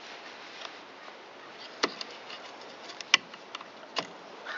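Three sharp clicks over a faint steady hiss, about a second apart: tools or engine parts being handled while working on seized bolts.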